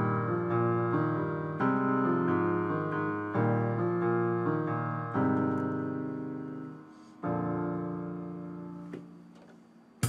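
Background music of slow piano chords, about five in all, each struck and left to ring and fade before the next.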